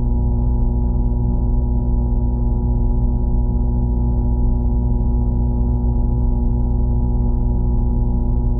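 A steady, unchanging drone of several held low tones, with faint scattered ticks above it.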